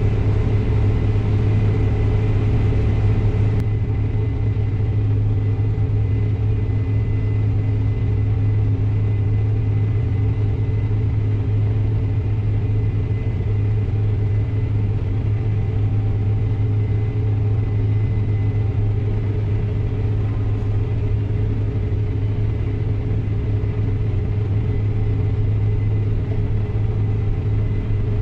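Combine harvester running steadily while harvesting wheat: a constant low drone from the engine and threshing machinery.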